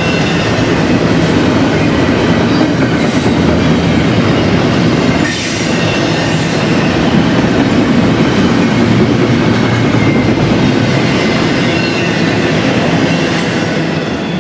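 Double-stack container freight train passing close by, its wheels running loudly and steadily on the rails, with a brief dip about five seconds in.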